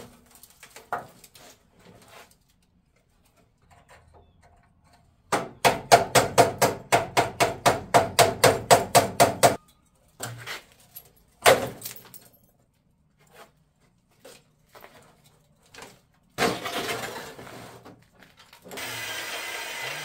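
Scattered metal clinks, then a fast run of hammer blows on a steel door panel, about five a second for four seconds, followed by a single heavy clang as the rotted bottom section of a 1948 Willys door is worked loose. A noisy burst comes near the end, then a steady rushing noise.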